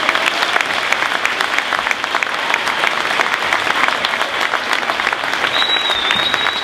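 Crowd applauding, many hands clapping steadily. A thin, steady high tone joins near the end.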